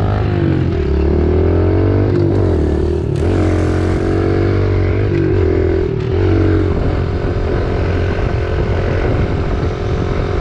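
Pit bike engines accelerating along a road, the engine note climbing and dropping repeatedly as the riders shift up through the gears, then running at a steadier pitch in the second half.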